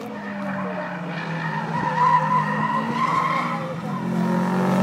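Racing car engines running hard on a circuit as cars go by, louder near the end as one comes closer. About two seconds in, a high wavering squeal of tyres cornering joins the engines for a second or so.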